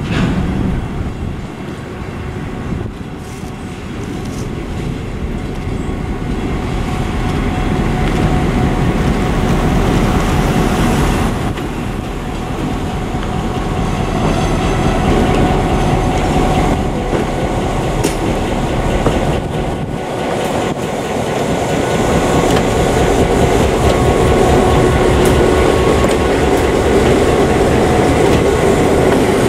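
An EMD GP9 diesel-electric locomotive running with its train, the sound growing louder over the stretch as it draws nearer.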